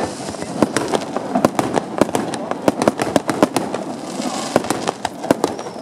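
Fireworks display: aerial shells bursting in quick, irregular succession, several sharp bangs a second, with a brief crackling hiss about four seconds in.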